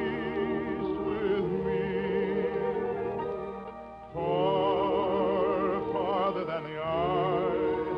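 Baritone singing long held notes with wide vibrato over an orchestra, in an early-1950s radio recording. The music dips about four seconds in, then a new phrase comes in loudly.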